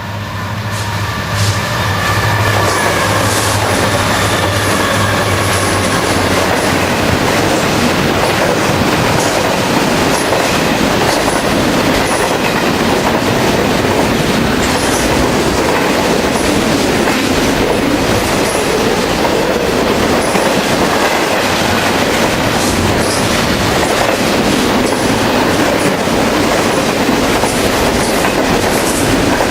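Train cars rolling past close by: a steady rumble with wheels clacking rhythmically over the rail joints. A low diesel engine drone is heard at first and fades out within the first several seconds.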